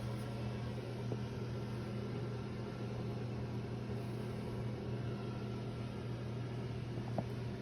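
A steady low mechanical hum over a hiss, with a faint click about a second in and another near the end.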